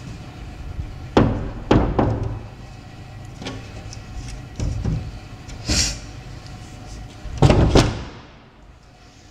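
Casement window being pushed shut by hand, its frame knocking against the jamb several times, with two loud knocks about seven and a half seconds in. After those knocks the outside background noise drops away, muffled by the closed window.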